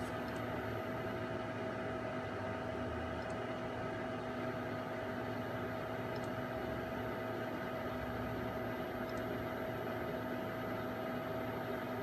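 Steady hum and hiss from a running rack of 1965 HP microwave test instruments, with a constant mid-pitched tone and fainter steady tones over the noise.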